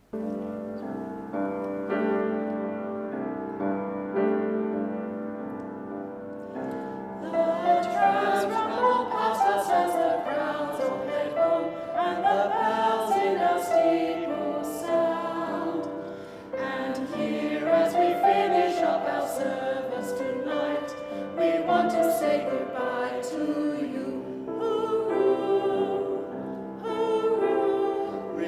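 Choir singing with piano accompaniment: about seven seconds of held chords as an introduction, then the voices come in and carry the melody.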